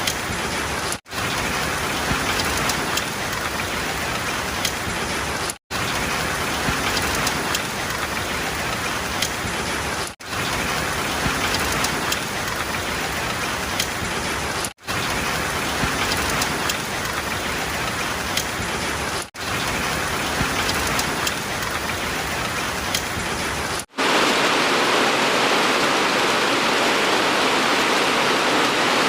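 Steady rain falling on a surface, broken by brief cuts to silence about every four and a half seconds. About 24 seconds in it switches to a louder, smoother, even rushing noise.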